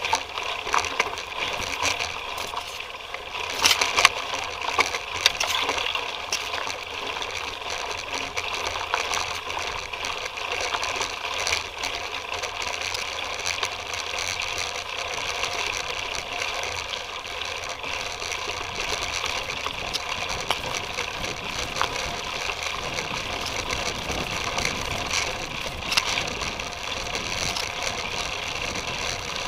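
Titus FTM mountain bike rolling over a bumpy dirt trail, heard through an action camera fixed to the frame: a steady rattle and rumble of the frame and tyres, with a few sharp knocks from bumps a few seconds in.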